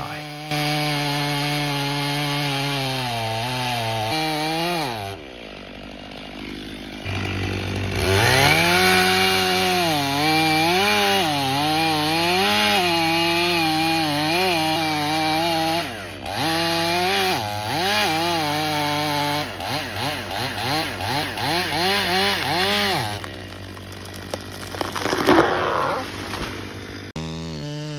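Chainsaw running and cutting into wood, its engine pitch rising and falling again and again as the throttle is worked. The sound changes abruptly several times, with a short sharp loud sound about three quarters of the way through.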